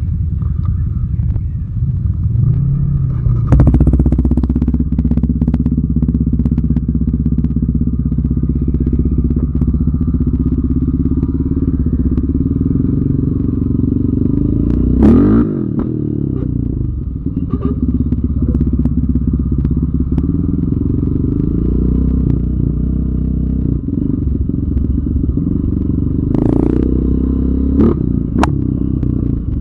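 Yamaha Raptor 700R ATV's single-cylinder engine running as the quad is ridden, with the throttle changing. It gets louder about three and a half seconds in, sweeps up and down in pitch about halfway through and again near the end, with scattered short knocks from the machine.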